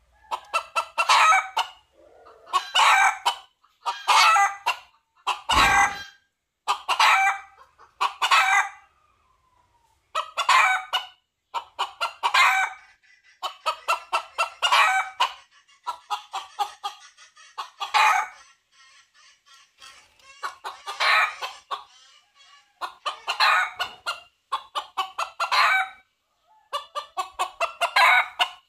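Red junglefowl rooster calling over and over: short, clipped crows and clucking calls about every one and a half to two seconds, with a brief pause near the middle. A dull thump sounds once about six seconds in.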